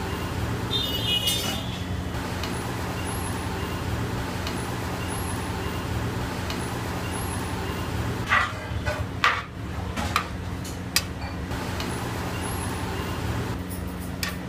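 Steady low rumble and hum from a large cooking burner under a big pot of dum biryani, with a few sharp knocks about eight to eleven seconds in.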